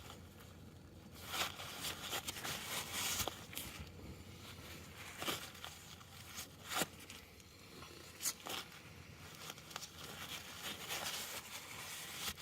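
Faint handling noises: scattered rustling and scraping with a few sharp clicks, from hands working at the car's front wheel area.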